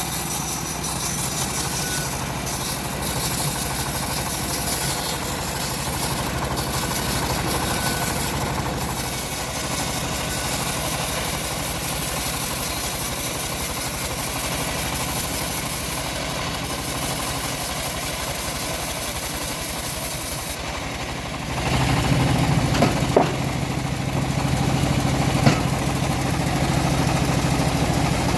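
Engine-driven homemade band sawmill running steadily. About three-quarters of the way through, the sound turns louder and deeper, with a couple of sharp knocks.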